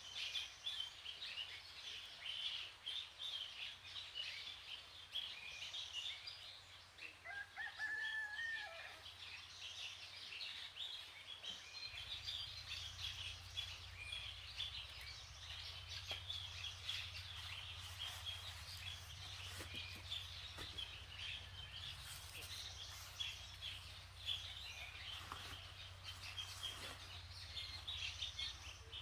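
A rooster crows once, about seven seconds in, over steady high chirping of birds. A low steady hum joins about twelve seconds in.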